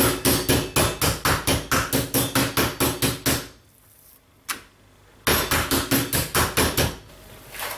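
Wooden meat mallet pounding slices of pork loin on a plastic cutting board that has a cloth laid under it to deaden the noise, in quick even blows about five a second. The blows pause for about two seconds midway, with one single blow in the gap, then start again for a short run.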